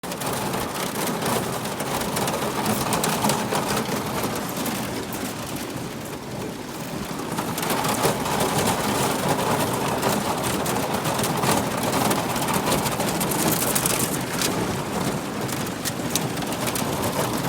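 Boat hull pushing through thin new lake ice, the ice crunching and crackling steadily as it breaks.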